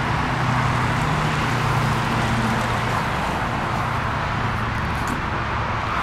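Steady vehicle and traffic hum, with a low engine-like drone that is strongest for the first few seconds and then fades.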